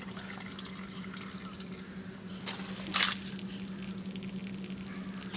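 Condensate water dripping and trickling from a hole drilled in the underside of a VAZ 2110 muffler, the water that has collected inside the exhaust draining out, with a steady low hum underneath and two short sharp sounds about two and a half and three seconds in.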